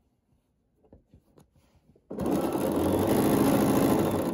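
Bernina sewing machine starting abruptly about two seconds in and running steadily at speed, stitching a quarter-inch seam at stitch length 2. Before it starts, only faint taps of the fabric being handled.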